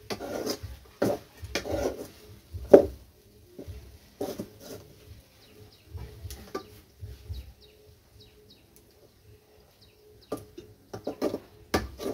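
Long steel spoon scraping and knocking against an aluminium pot as thick semolina upma is stirred, in irregular strokes, the loudest about three seconds in and a quick run near the end. Birds chirp faintly in the background.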